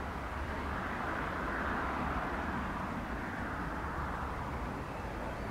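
Distant jet aircraft engine noise over a low rumble, swelling in the first couple of seconds and easing off after.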